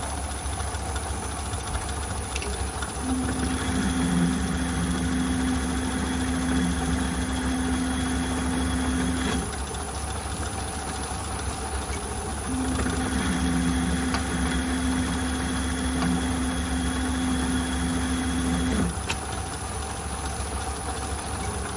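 Small metal lathe running steadily with its spindle at about 830 rpm during an automatic turning cycle. Twice, for about six seconds each, a steady whine from the electronic lead screw's motor joins in as it feeds the carriage through a cutting pass; a third pass starts right at the end.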